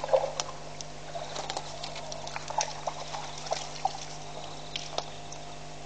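Elephants at the water's edge making irregular splashing, dripping and clicking sounds of water and wet mud, loudest just after the start, over a steady low hum.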